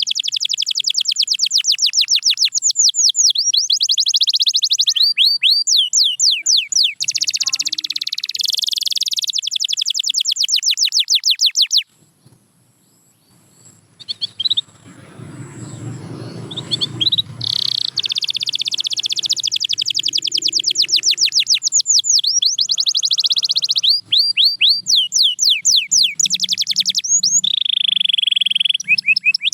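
Canary singing long, fast trills of rapidly repeated high notes, changing from one trill to the next every second or two. About twelve seconds in the song breaks off for roughly two seconds, a low noise follows briefly, and the trills resume.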